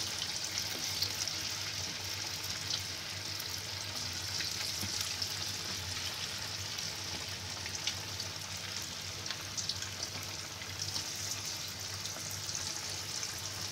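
Batter-coated chicken pieces deep-frying in hot oil in a wok on a low flame: a steady sizzle with small scattered crackles.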